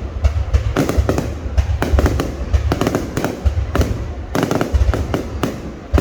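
Fireworks going off in quick succession: a dense run of sharp crackling pops over repeated deep booms.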